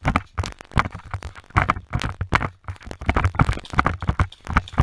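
Footsteps of a person running over dry leaf litter, crunching and rustling about two or three times a second.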